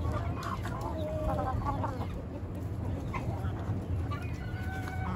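Backyard flock of chickens, hens and roosters, clucking while feeding, with many short overlapping calls.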